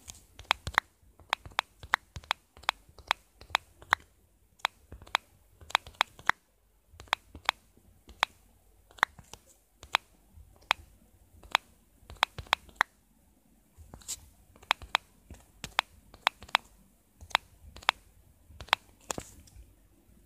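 Sharp irregular clicks, about two or three a second, from typing a message on a phone keyboard.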